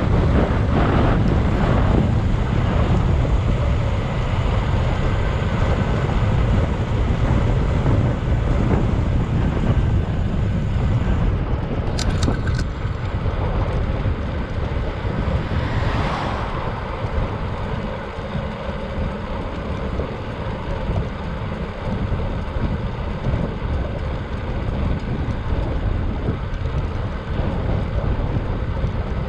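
Wind rushing over the microphone while riding a bicycle, a steady low rumble, with a few sharp clicks about twelve seconds in.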